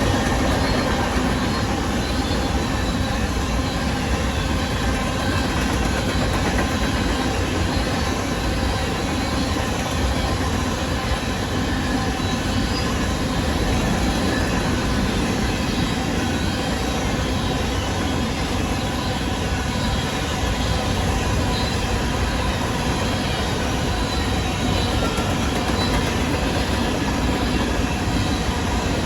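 Freight train of grain cars rolling past, a steady rumble of steel wheels on rail with faint wheel squeal.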